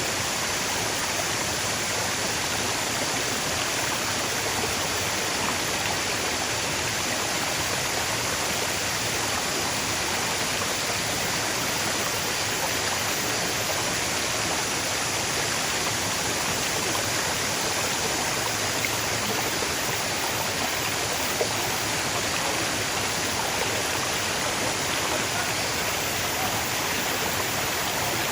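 Running water, a steady unbroken rush with no splashes or pauses.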